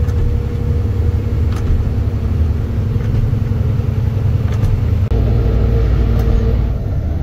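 Heavy truck's diesel engine running steadily under way, a loud low drone heard inside the cab, with a change in the engine note about five seconds in.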